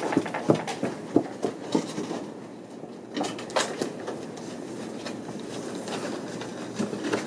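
Footsteps and a chair being shifted and carried, a string of irregular knocks and clicks.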